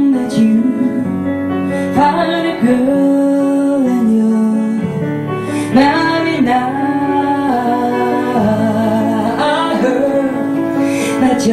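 A woman singing a slow ballad to her own piano-sound keyboard accompaniment, holding long notes that slide between pitches.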